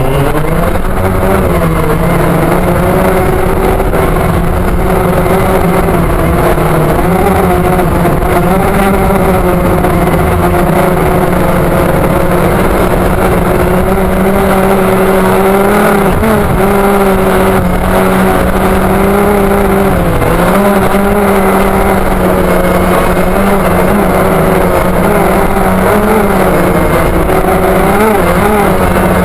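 DJI Phantom quadcopter's electric motors and propellers, heard from a camera mounted on the drone itself: a loud steady whine as it lifts off and flies. The pitch wavers slightly with throttle, dipping briefly about 16 and 20 seconds in.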